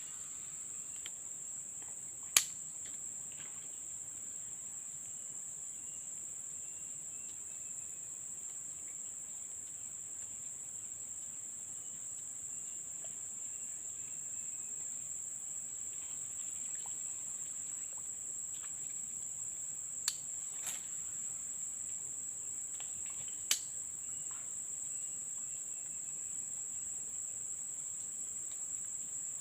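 A steady, high-pitched drone of insects, such as crickets, chirring without a break, with a few sharp clicks standing out above it.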